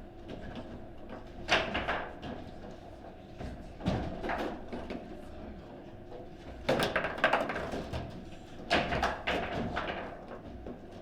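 Table football in play: the ball is struck by the rod figures and rattles off the table walls in four short flurries of sharp knocks.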